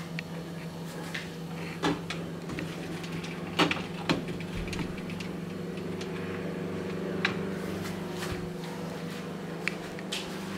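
A few scattered knocks and clicks of a door being handled, over a steady low hum. The loudest pair of knocks comes about four seconds in.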